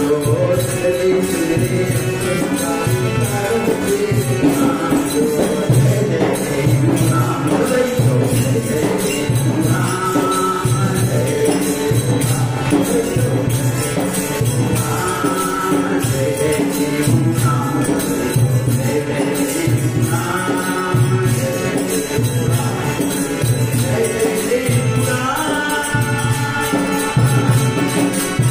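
A male voice singing a Sindhi devotional bhajan, accompanied on harmonium, over a steady low drum beat.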